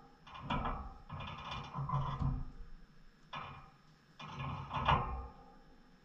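Pet birds moving about in a wire cage and grass nest bowl: irregular rustling and knocking in about four bursts, with soft thumps.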